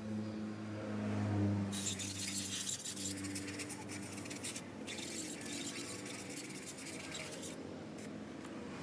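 Compressed air hissing from an air hose blown at a motorcycle cylinder block, in two long blasts with a brief break between them, over a steady low hum.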